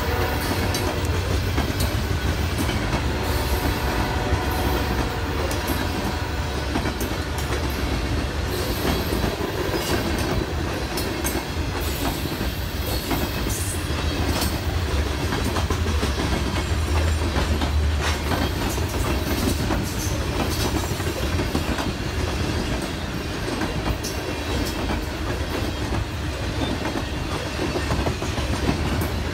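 Freight train of Norfolk Southern covered hopper cars rolling past at close range: a steady rumble of steel wheels on rail, with irregular clicks and clacks as the wheels cross rail joints.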